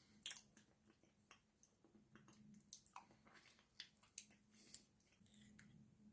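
Faint close-miked eating sounds: wet mouth smacks and clicks of someone chewing a sticky food spread, in irregular bursts with a few sharper smacks.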